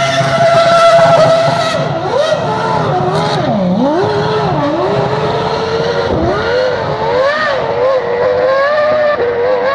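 Red Bull Formula 1 car's V8 engine at high revs, held steady for about two seconds and then rising and falling over and over as the car is spun on the spot, with tyres skidding.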